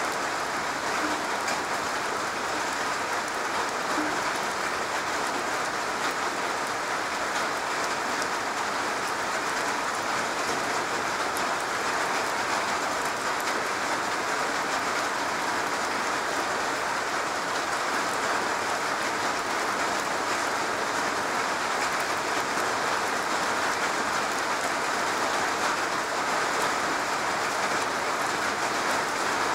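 Steady rain falling on a garage roof: a dense, even patter of drops at a constant level.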